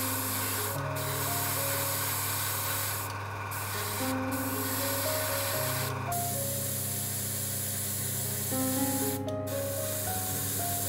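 Airbrush spraying paint in a steady hiss, cut off briefly about five times as the trigger is let go, over background music.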